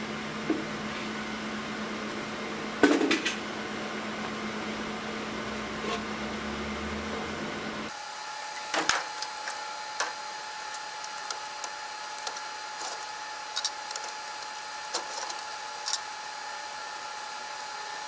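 Hands handling mainframe hardware over a steady background hum. First a light knock and then a louder one on the sheet-metal fan unit. After a change of shot about halfway through, a run of small clicks and taps as cables and connectors are handled at the card cage, with a faint steady high tone underneath.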